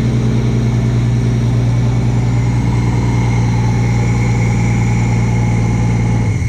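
Toyota 7M-GTE turbocharged straight-six engine idling steadily on its first start after a rebuild, then shutting off near the end.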